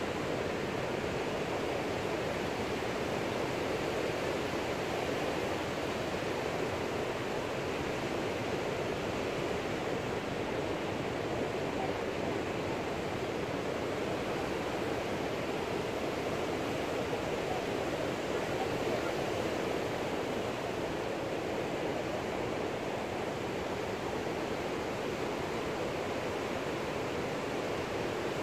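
Steady, even rushing noise with no rise and fall, strongest in the mid range.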